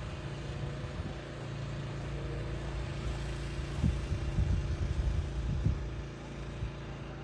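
An engine running steadily at a steady pitch, with irregular low thumps in the middle.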